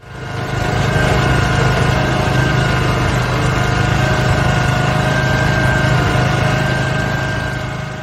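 Engine of a heavy road-building machine running steadily. It fades in over the first second and tapers off near the end.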